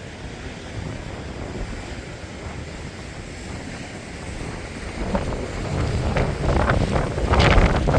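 Steady rushing of a waterfall, with wind buffeting the microphone in gusts that grow louder from about five seconds in.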